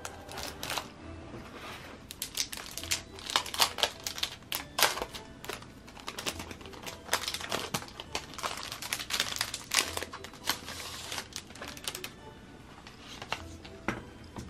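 Thin plastic wrap crinkling in irregular crackles as it is pulled off a new keyboard, with paper packaging rustling, over soft background music.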